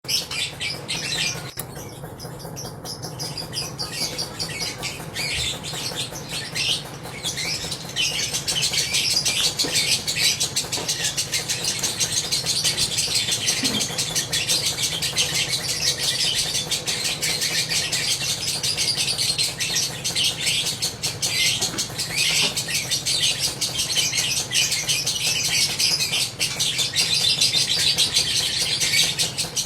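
A lovebird singing 'ngekek': a long, unbroken run of rapid, high chattering chirps, fuller from about eight seconds in.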